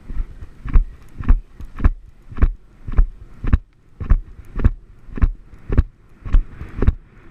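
Horse's hoofbeats at a canter on grass, one thump with each stride, about two a second in an even rhythm, picked up through a rider's helmet camera.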